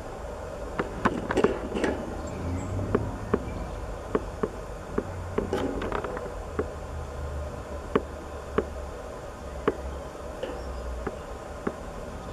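Insects buzzing by a wooden nesting block, with two louder buzzy spells about a second and a half and six seconds in, over a low steady hum. Sharp separate clicks sound every half second to a second.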